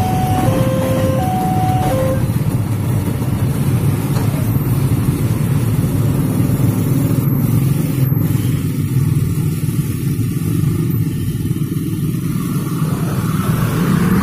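Level-crossing warning signal sounding in alternating two-note electronic tones, which stops about two seconds in. Under it, and after it, a crowd of motorcycle and car engines runs as a steady rumble as the traffic moves off across the tracks.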